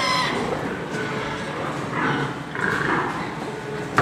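Crated sows in a pig barn calling: a short pitched cry at the start, then two harsher squeals about two and three seconds in, over a steady barn background.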